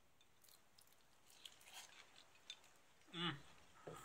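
Faint eating sounds: light crunchy bites and chewing of battered tempura, with a short hummed vocal sound about three seconds in.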